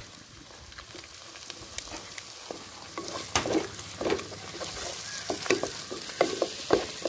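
A spatula stirring and scraping through onion-tomato masala in a pot over a steady frying sizzle, with the strokes coming faster and louder from about three seconds in as raw eggs are scrambled into the masala.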